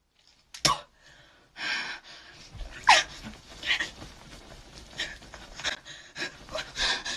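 A woman panting and huffing hard in short, angry bursts, with a couple of brief falling cries, as she punches the air in frustration.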